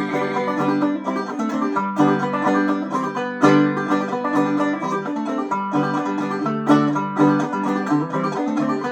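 Clawhammer banjo in open G tuning playing an instrumental break: a steady rhythmic run of plucked notes and brushed strums.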